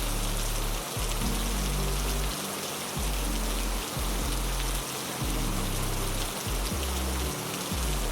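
Heavy rain falling steadily, a dense even hiss, with low held bass notes of background music underneath that change every second or so.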